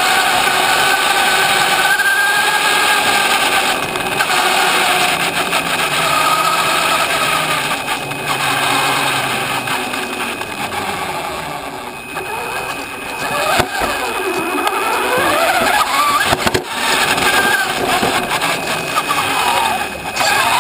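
Radio-controlled car's motor and drivetrain running, heard close up from a camera mounted on the car, its whine rising and falling in pitch as the throttle changes.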